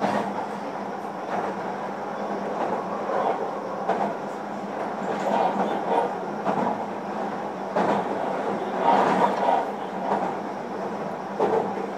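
Running sound inside a JR Kyushu 305 series electric train's motor car: a steady rumble of wheels on rail with a constant low hum, broken by sharp clacks every second or so, often in close pairs, as the wheels pass rail joints.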